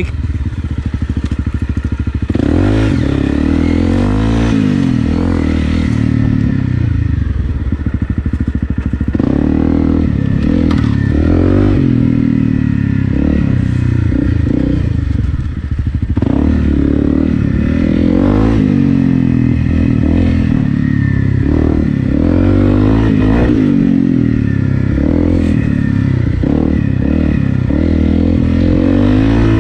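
Honda CRF250 Rally's single-cylinder four-stroke engine, breathing through an FMF PowerCore 4 exhaust, running under way and revving up and down over and over as the throttle is worked on a dirt trail, with knocks and rattles from the bike over rough ground.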